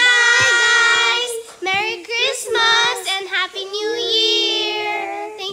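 Children singing without accompaniment, with long held notes near the start and again near the end.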